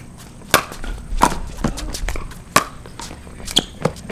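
Pickleball rally: four sharp pops of paddles striking the hollow plastic ball, about a second apart at uneven intervals, with fainter ticks between.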